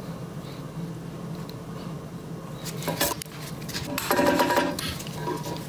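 Light metallic clinks of hand tools against a Norton Commando's cam chain and timing chest: a single click about three seconds in, then a short ringing metal rattle about four seconds in.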